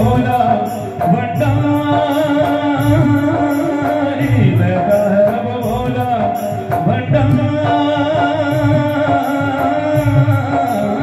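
Live Hindi devotional bhajan music over a PA system: a held keyboard melody over a steady drum beat, with low beats about once a second.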